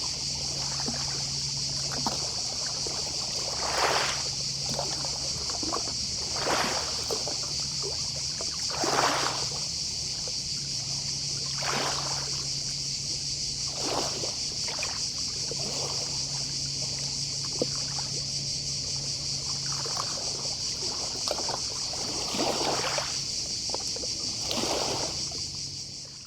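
Small sea waves lapping and washing on the shore every two to three seconds, over a steady high-pitched chorus of distant cicadas. A low hum comes and goes underneath.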